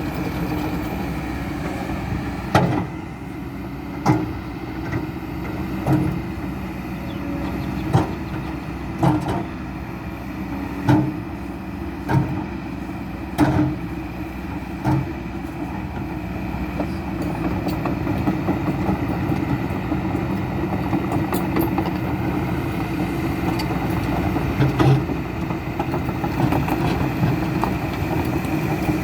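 Kobelco SK200-10 excavator's diesel engine running steadily, with sharp knocks and clanks every second or two through the first half. The engine grows a little louder in the second half.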